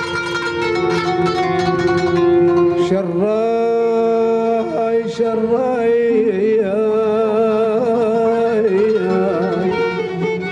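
Background music: an Arabic song with plucked-string accompaniment. A solo voice enters about three seconds in, singing with a wavering, ornamented line.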